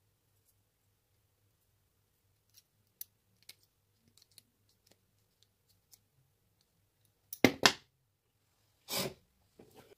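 Hand-work with small metal parts, a snap fastener and slip-joint pliers, on leather: scattered faint ticks, then two sharp clicks in quick succession a little past the middle, and a louder knock about a second and a half later.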